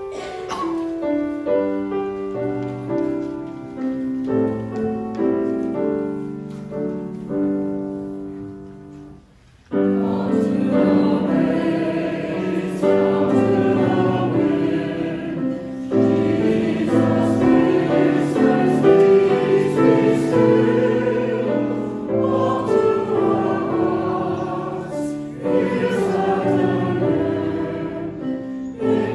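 Church choir and congregation singing a sung response with keyboard accompaniment. A softer instrumental introduction of held chords comes first, and the singing comes in suddenly and louder about ten seconds in.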